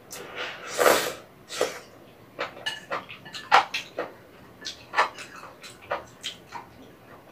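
Close-miked eating of ramen and rice cakes in broth: a longer slurp about a second in, the loudest sound, then wet chewing and lip smacks with a few sharp clicks at uneven intervals.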